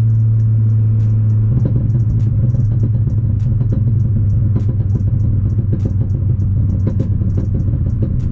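Engine and road noise inside the cabin of a Ford Focus ST's 2.0-litre turbo four-cylinder, running at highway speed with a Cobb rear motor mount fitted. A steady low drone turns louder and rougher about a second and a half in, as the engine takes more load.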